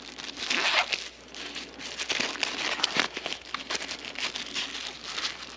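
Thin plastic packaging sleeve crinkling as hands handle and open it, a continuous run of small crackles, loudest about half a second in and again around three seconds.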